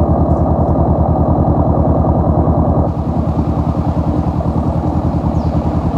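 Honda CB500F's parallel-twin engine running at a steady idle through an aftermarket HP sport exhaust, an even stream of low exhaust pulses with no revving. About three seconds in it becomes slightly quieter.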